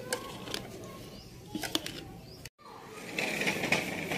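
A few sharp knife clicks against a small plate as green chillies are cut. After a break, a cloth flag flaps in the wind, with birds chirping.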